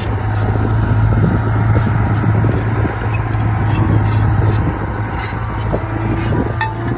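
Heavy diesel earthmoving engine running steadily under load, with scattered short clicks and knocks over it.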